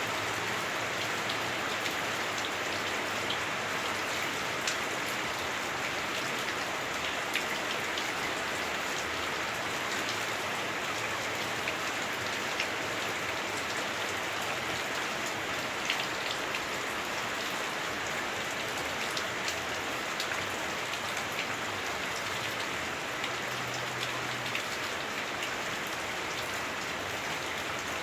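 Heavy rain on a house roof, heard from inside the house. It is a steady, dense hiss with scattered sharper ticks of individual drops.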